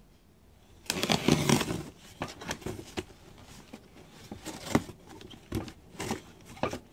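Box cutter slicing through packing tape on a cardboard box: a rasping cut about a second in, then a run of short scrapes and clicks as the blade is drawn along the taped seam.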